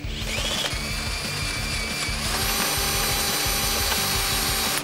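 Cordless drill spinning a step bit into a steel frame bracket, widening a half-inch hole one step to 9/16 inch. The motor whine rises as it spins up, then jumps to a higher, louder pitch about two seconds in, over background music.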